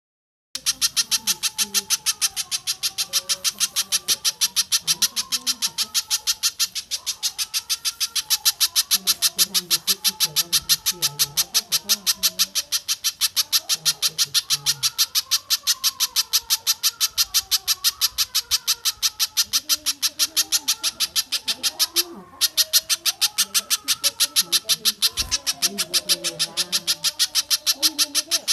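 Recorded bird call: a fast, even run of sharp repeated notes, about five a second, with one brief break about 22 seconds in.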